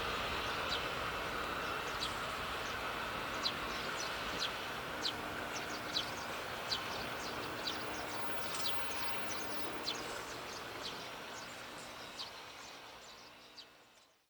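A train running on the track, its noise slowly dying away and fading out near the end, with short high chirps repeating about once a second.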